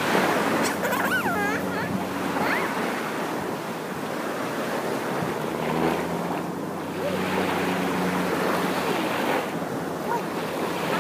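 Small waves washing on a sandy shore, a steady rush that swells and eases, with wind buffeting the microphone.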